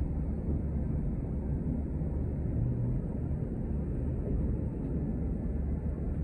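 City transit bus running, heard from inside the passenger cabin: a steady low rumble of engine and road noise.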